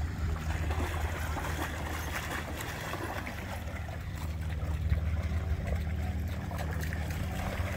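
Water splashing and trickling, over a steady low hum.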